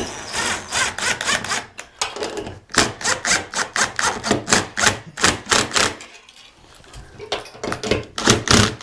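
Cordless drill-driver running in three bursts with a rapid clicking rattle, tightening the nuts that bolt the metal electrical box onto the ceiling-fan brace.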